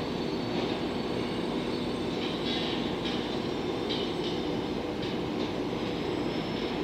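JNR 115-series electric train running away over curved track, a steady rumble and hum with several short, high-pitched wheel squeals.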